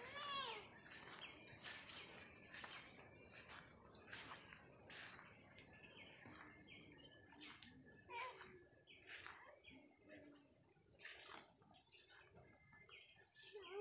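Steady, high-pitched chorus of insects chirring in the surrounding vegetation. A short pitched call falling in pitch comes just after the start, and another about eight seconds in.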